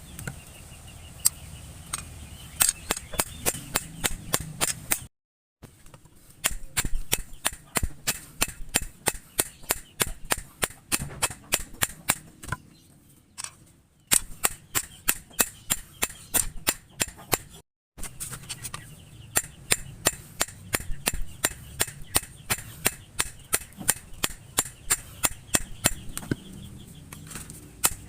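Hammer blows on steel over an anvil, struck in quick runs of about two to three a second, each with a bright metallic ring, under a low steady hum. The sound breaks off abruptly a few times.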